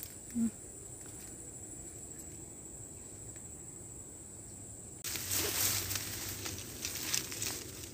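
Insects droning steadily on one high pitch. About five seconds in, a louder rustling noise lasts for a couple of seconds.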